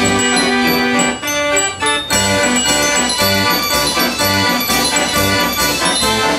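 Fairground organ playing a tune: held pipe notes carrying the melody over a steady beat in the bass.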